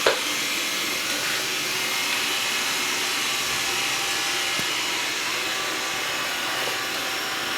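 Xiaomi Mi robot vacuum running steadily, its suction fan and brushes giving an even whirring hiss as it cleans the floor. A single sharp knock right at the start.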